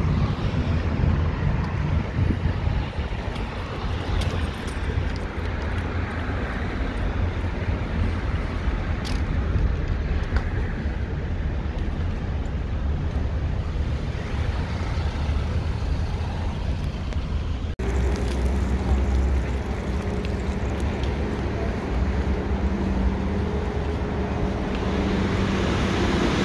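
Road traffic with cars driving slowly past close by, a steady low rumble of engines and tyres. About two thirds of the way through the sound cuts abruptly, and a steady low hum with a held pitch comes in.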